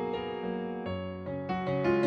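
Background piano music: a melody of notes that change every fraction of a second.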